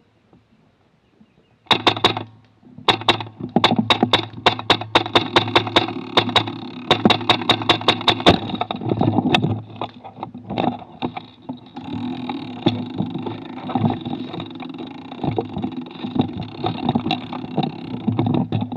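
Airsoft rifle firing fast semi-automatic shots, about four a second, each a sharp crack with a short echo, picked up by a camera mounted on the gun's rail. After about eight seconds the firing thins out to scattered shots amid rough handling and movement noise.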